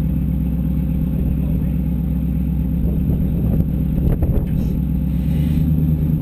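Vehicle engine idling steadily, with a few knocks about four seconds in.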